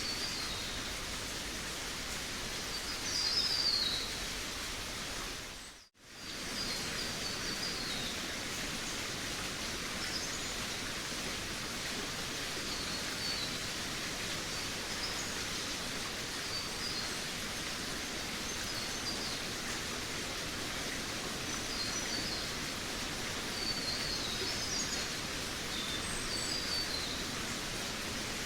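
Forest ambience: small birds chirping in short, high, scattered phrases over a steady background hiss. The sound cuts out for a moment about six seconds in, then resumes.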